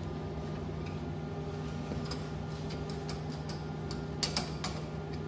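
Irregular light clicks and ticks as an ultrasonic welding machine's handwheel and mold fixture are adjusted by hand, over a steady electrical hum, with a short cluster of louder clicks about four seconds in.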